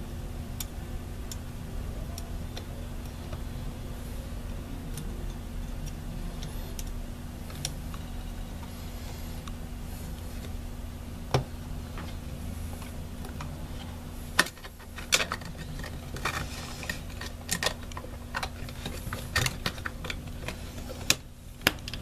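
Scattered light clicks and taps as the Mac Mini's perforated metal plate and small internal parts are handled and snapped into place, over a steady low hum. The clicks come at irregular intervals and are more frequent in the second half.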